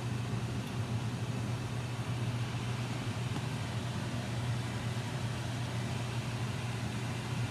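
Kitchen range hood exhaust fan running with a steady low hum and an even rush of air.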